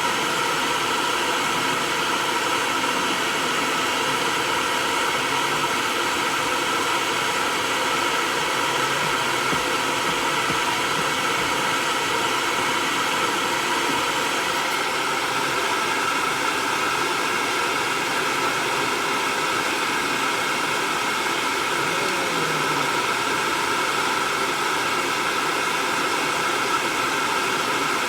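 Hair dryer running steadily, a constant rush of air with a faint motor whine, blowing on a cat's wet coat.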